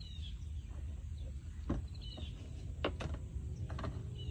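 A songbird chirping, a short high curved call about every two seconds, over a steady low rumble. A few sharp clicks fall between the calls, plastic-and-tool sounds from a screwdriver prying a license plate lamp out of its spring clips.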